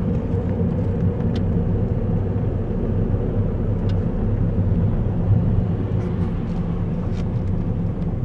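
Car engine and tyre noise heard from inside the cabin while driving: a steady low rumble, with a few faint clicks.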